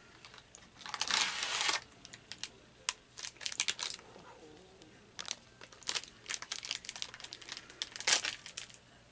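A cardboard Pocky snack box torn open, with a rasping rip about a second in. Then the foil packet inside crinkles and crackles in many short, sharp bursts as it is handled and pulled open.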